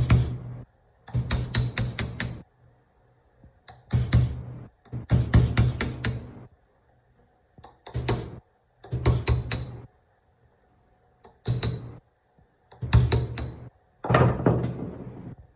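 Rapid hammer taps on metal in short bursts of about a second each, with pauses between, the metal giving a high ringing with every blow.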